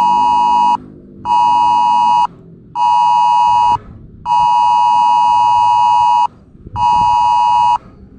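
Electronic two-tone alert signal of the Emergency Alert System attention-tone kind, a harsh steady chord near 1 kHz, sounding in on-off pulses of one to two seconds, five of them.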